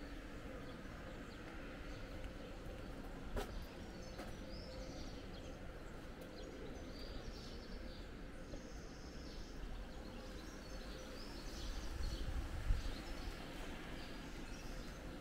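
Outdoor ambience of small birds chirping over a steady background noise, with a single sharp click about three seconds in and a brief low rumble near the end.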